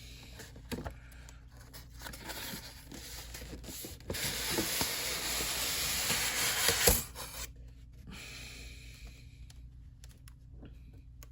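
Toy packaging being handled as the figure comes out of its box: scattered small clicks and rustles, then a continuous rough rustle of about three seconds that ends in a sharp snap, followed by faint rustling.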